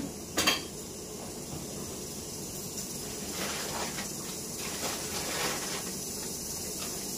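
Kitchen prep sounds over a steady hiss: a sharp knock about half a second in, then softer handling noises.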